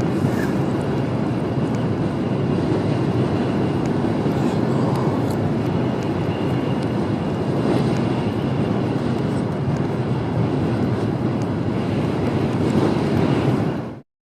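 Tokaido Shinkansen cabin noise at speed: a steady rumble of wheels and rushing air. It cuts off abruptly near the end.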